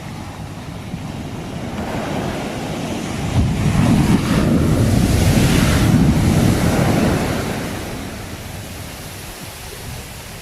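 Sea waves surging on the shore: one wave builds over the first few seconds, is loudest in the middle and washes away again. Wind rumbles on the microphone underneath.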